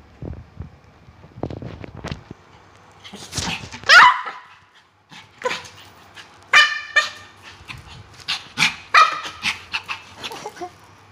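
Pomeranian barking in a run of short yaps, the loudest about four seconds in and several more through the second half. Before the yaps, a few knocks and scuffles on the wooden floor.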